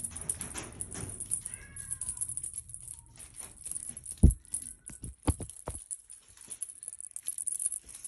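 Cats moving about right against the phone: scuffs, taps and knocks of paws and fur brushing the device, the loudest a thump about four seconds in, with a few faint short high squeaks.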